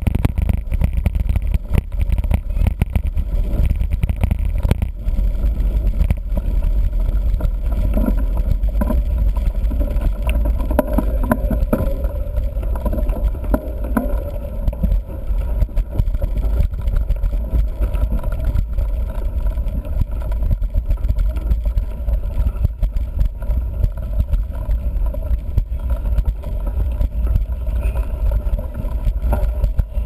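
Mountain bike rolling over a gravel dirt road: heavy wind rumble on the microphone, with a constant rattle and crackle of tyres over loose stones and jolts through the bike.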